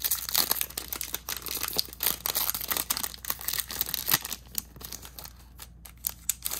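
Foil wrapper of a Pokémon booster pack crinkling and tearing as it is pulled open by hand. The dense crackling thins out after about four seconds.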